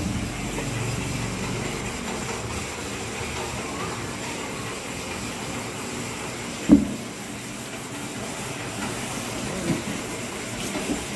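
Steady background noise with one sharp knock about two thirds of the way through and a fainter knock near the end.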